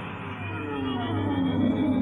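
Electronic anime soundtrack sound: a dense wash of gliding, eerie tones, many sliding down in pitch, slowly growing louder.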